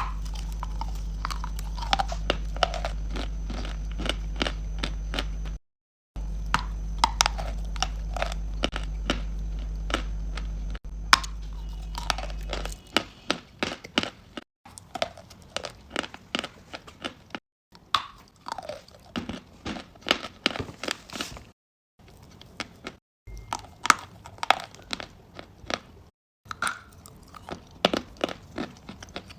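Close-up chewing and crunching of chalk and clay pieces: many sharp crunches several times a second, in short clips with brief silent breaks between them. A steady low hum sits under the first dozen seconds.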